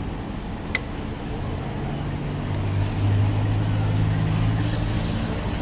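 Street noise with a motor vehicle engine running, a low hum that swells louder around the middle. There is a single sharp click about a second in.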